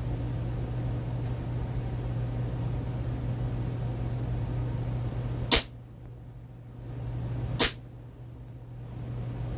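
CO2-powered blowback airsoft pistol (Steyr L9-A2) firing twice, two sharp cracks about two seconds apart in the second half, over a steady low hum.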